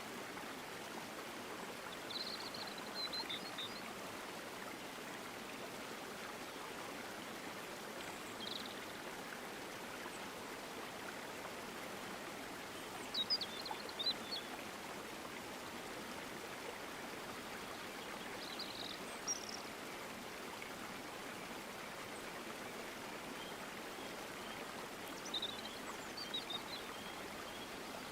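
Steady rush of a mountain stream, with short high bird chirps breaking in every few seconds.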